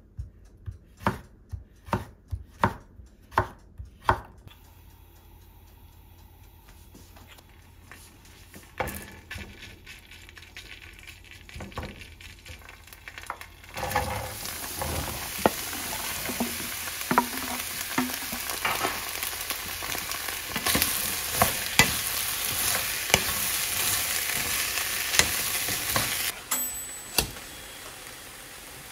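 A kitchen knife chops zucchini on a wooden cutting board: about eight quick knocks in the first few seconds. Partway through, diced bell pepper and zucchini are tipped into a hot frying pan and start sizzling loudly. The sizzle runs on with scattered clicks of stirring before it cuts off near the end.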